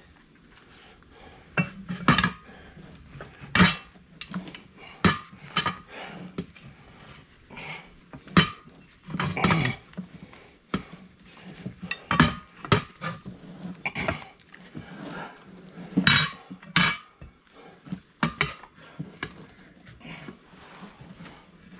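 Steel tire irons and a mount/demount bar clanking and scraping against a steel tractor wheel rim on a manual tire changer, as the stiff bead of a new tractor tire is levered over the rim. The strikes are irregular, with a few louder clanks among many lighter knocks.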